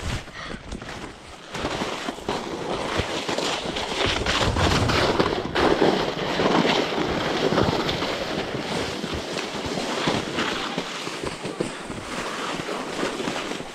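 Small round plastic sled sliding fast over snow: a continuous rushing scrape of snow under the sled with uneven knocks as it runs over bumps, mixed with wind on the microphone. It gets louder about a second and a half in as the sled picks up speed.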